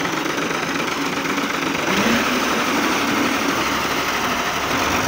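Fiat 480 tractor's three-cylinder diesel engine running steadily, growing a little louder about two seconds in.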